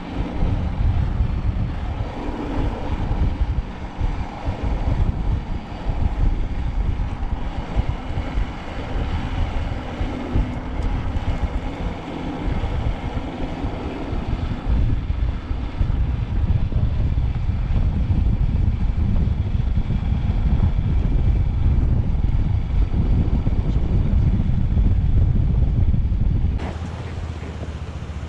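Wind buffeting the microphone over a motorcycle engine while riding an adventure motorcycle. About 26 seconds in, the sound changes suddenly to the bike idling steadily with the wind gone.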